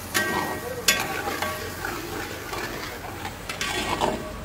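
Metal spatula stirring thick masala gravy in a metal pan, scraping and knocking against the pan, with two ringing clinks in the first second, over the sizzle of the cooking gravy.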